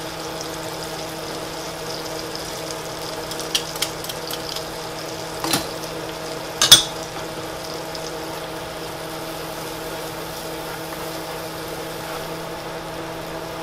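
Shallot and Marsala sauce simmering in a skillet, a soft bubbling hiss over a steady hum, with a few sharp clicks around the middle, the last the loudest.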